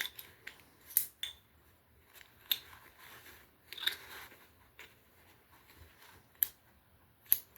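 Sharp metallic clicks and taps from the metal parts of a quick-disconnect scope mount being handled and worked, about seven spread unevenly over several seconds, with faint handling noise between them.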